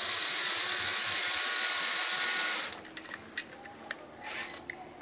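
Lego Technic 9398 4x4 crawler's electric drive motors and plastic gear train whirring steadily as it drives, cutting off suddenly about two and a half seconds in. Scattered clicks and short buzzes follow.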